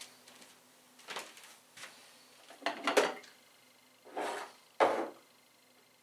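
A handful of short knocks, clatters and rubs, about five in six seconds, the loudest with a sharp knock about three seconds in: handling noise of objects being moved on a kitchen counter.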